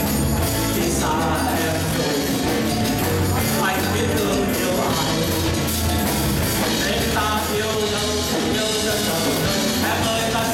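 Live band playing an upbeat song through the hall's speakers: a singer on a microphone over drum kit, electric guitar and keyboard, with a steady beat.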